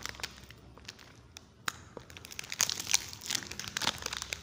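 Plastic wrapper of a chocolate snack cake crinkling as it is handled and pulled open by hand. A few faint crackles at first, then dense crinkling from about halfway through.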